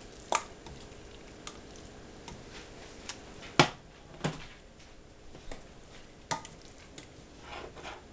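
Several sharp clicks and knocks from a spoon against a stainless steel soup pot, with the loudest clack about three and a half seconds in, over a faint steady hiss.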